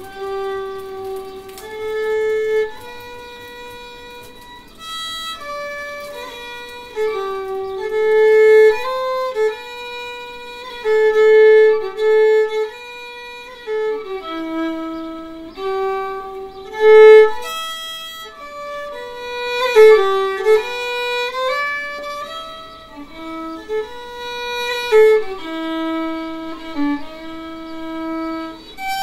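Solo fiddle playing a slow tune, one note at a time, most notes held for about a second with short slides between them.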